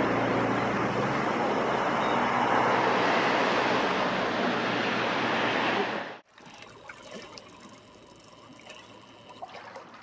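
Seaside water noise: a steady, loud rush with a low hum under it cuts off suddenly about six seconds in. Quieter water lapping in the shallows follows, with small clicks.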